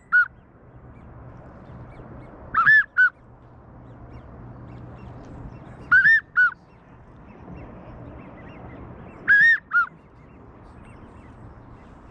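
American wigeon whistles: three-note whistled calls, a longer arched note then two short falling ones, repeated about every three seconds.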